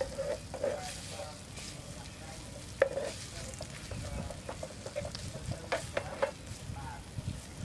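Strips of ginger sizzling in oil in a frying pan while a spatula scrapes and taps against the pan as they are stirred, with one sharper knock about three seconds in.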